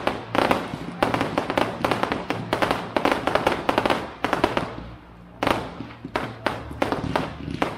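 Aerial fireworks display going off in dense, rapid strings of crackling pops and bangs, with a short lull about five seconds in before the crackling starts again.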